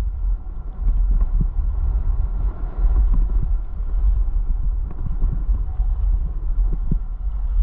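Wind rumbling and buffeting on a GoPro action camera's microphone at downhill speed, with the uneven scraping of edges sliding and turning on packed groomed snow.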